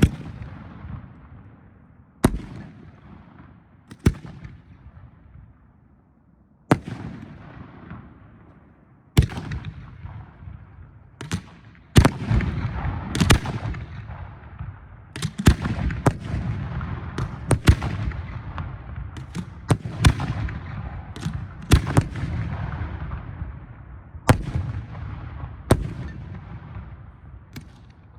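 Professional display firework shells fired from mortars and bursting in the air: sharp booming reports, each trailing off. They come about every two seconds at first, then faster and overlapping from about twelve seconds in.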